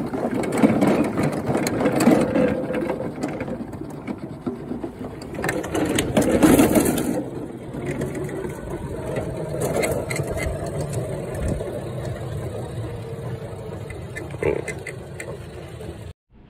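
Toro Wheel Horse 210-5 lawn tractor coasting downhill with its engine off: tyres rolling over cracked asphalt and the chassis rattling. The noise is roughest for the first several seconds, then settles into a steadier rolling hum, and it cuts off just before the end.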